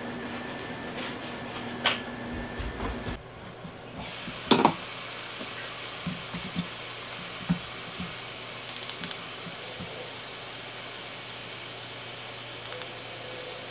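Ground beef sizzling in a frying pan, a steady hiss, with one sharp clatter about four and a half seconds in and a few light knocks on the pan a little after.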